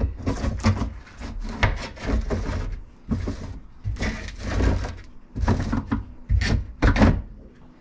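A stainless-steel mesh sieve being worked down into a polypropylene filter box: a run of irregular scrapes, rubs and knocks of mesh and plastic against plastic as it settles onto its ridge.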